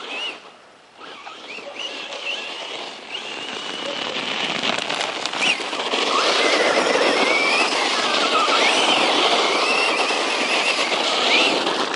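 Circuit Thrash 1/10-scale RC truck running flat out, its 2700 kV brushless motor whining high and rising and falling in pitch with the throttle over the rush of its tyres. Louder from about six seconds in.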